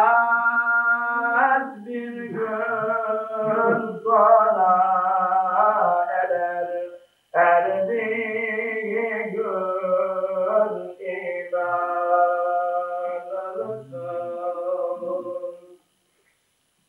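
A man singing a devotional chant unaccompanied, in long, ornamented held notes. The notes come in several phrases broken by short pauses for breath.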